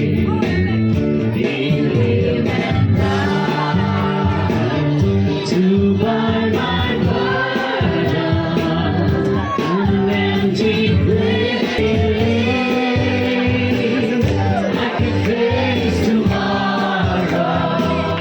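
Music with a group of voices singing, choir-like and gospel in style, at a steady loud level.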